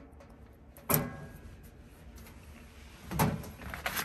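Handling noises at a vending machine's price strip and shelf: a single sharp click about a second in, then a cluster of knocks and rattles near the end.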